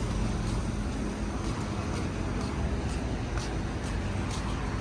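Car engines idling and creeping in a drive-thru lane: a steady low engine hum over a traffic rumble.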